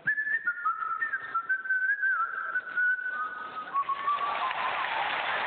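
Whistling: a single clear note that wavers and steps between pitches like a tune, sliding downward near the end, with a growing hiss of noise behind it in the second half.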